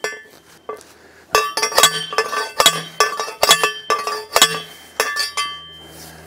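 Hand post driver pounding a 1¼-inch galvanized EMT conduit pole into the ground: a run of about a dozen ringing metal clanks, about two a second, lighter at first and stopping about five and a half seconds in.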